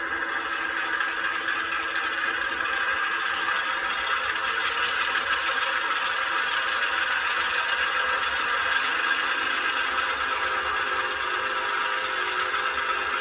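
ESU LokSound decoder's diesel switcher engine sound playing through the HO locomotive's small speaker: a steady rattling engine run that grows slightly louder about a second in.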